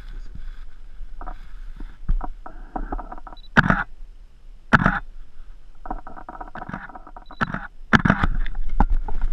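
Photographer's camera firing its shutter several times, two of the clicks just after a short autofocus beep, heard through a GoPro mounted on the camera, with rustling handling noise in between.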